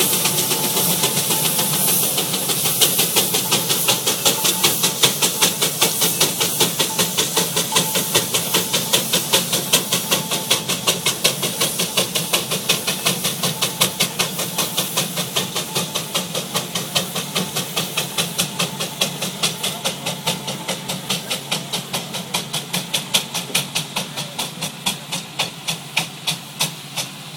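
Steam traction engine hauling a tractor-pull sled: a steady hiss of steam, then its exhaust beats settle into an even rhythm of about three a second, growing fainter as the engine pulls away.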